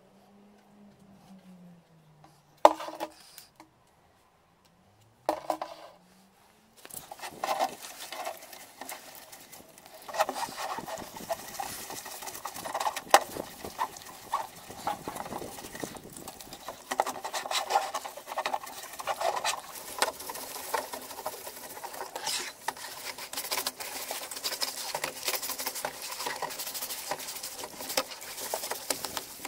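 A stiff-bristled brush scrubbing a plastic car hubcap: a dense, scratchy rasp of bristles over plastic with many small clicks. It starts about seven seconds in, after two single knocks of the hubcap being handled.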